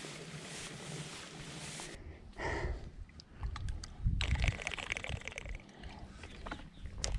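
Bicycle rolling along a paved lane with steady tyre and wind noise. About two seconds in, the sound changes abruptly to scattered knocks and runs of rapid clicking.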